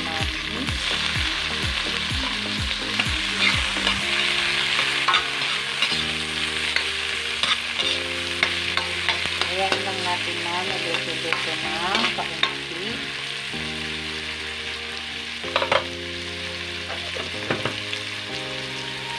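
Sliced ginger, onion and tomato sautéing in hot oil in a wok: a steady sizzle, with a spatula stirring and scraping against the pan and a few sharper knocks of it on the metal late on.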